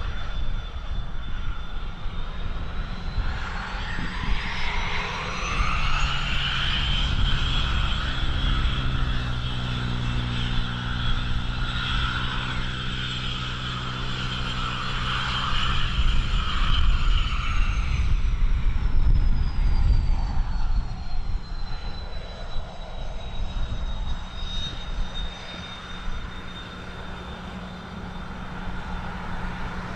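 Aircraft turbine engine whine rising in pitch, holding high for about ten seconds, then falling back down, with a low engine drone under it in the middle. Wind rumbles on the microphone throughout.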